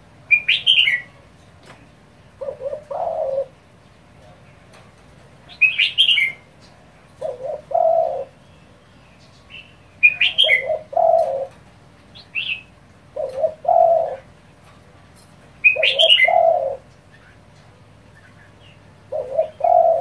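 Spotted dove cooing: about six short phrases of several low notes, roughly every three seconds, in the fast, urging 'kích bổi' style. Short high chirps from a small bird come in between the coos.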